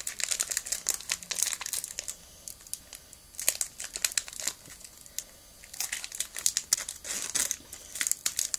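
Foil wrapper of a Pokémon trading card booster pack crinkling in bursts as it is torn open and handled, with short pauses between.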